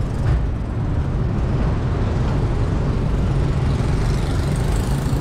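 Steady low rumble of road traffic, engines running without a break.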